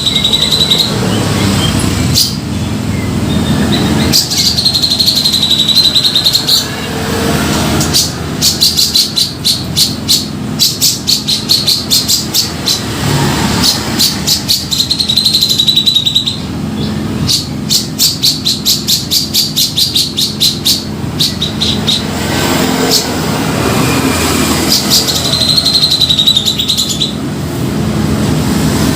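Grey-cheeked bulbul (cucak jenggot) calling loudly, as played for luring: wavering notes that come back about every ten seconds, alternating with runs of rapid, sharp chattering notes. A steady low rumble runs underneath.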